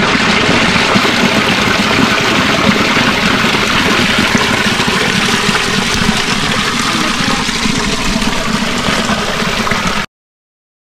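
Spring water gushing from a spout and splashing steadily into a stone basin; the sound cuts off suddenly about ten seconds in.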